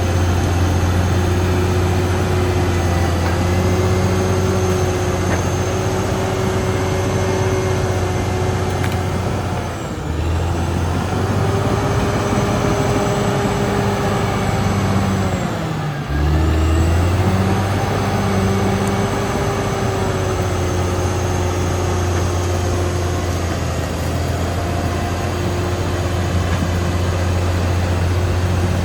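Caterpillar D6R XL bulldozer's diesel engine running steadily at working speed, its pitch sagging briefly about ten seconds in and dropping lower about sixteen seconds in before recovering.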